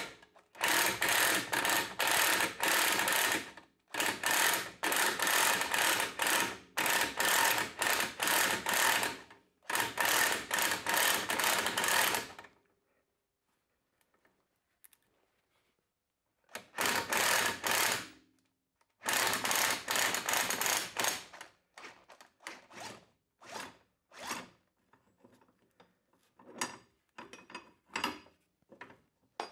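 Power tool spinning the threaded rod of an internal coil-spring compressor in repeated bursts of one to three seconds, letting the new rear coil spring of an Audi A3 extend. There is a pause of about four seconds midway, then shorter, quieter bursts near the end.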